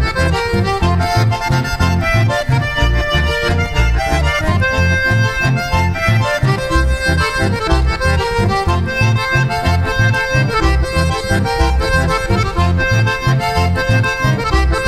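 Chamamé instrumental passage: accordion playing the melody over a steady rhythmic accompaniment.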